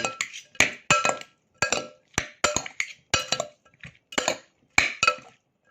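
A utensil clinking and scraping against a bowl as a mango salad is stirred and tossed. The clinks are irregular, a few each second, some with a short ring from the bowl.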